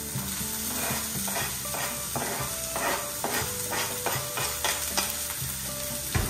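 Ground pork and garlic sizzling in oil in a frying pan, with repeated scrapes and taps of a spoon pushing the meat off a plastic cutting board into the pan.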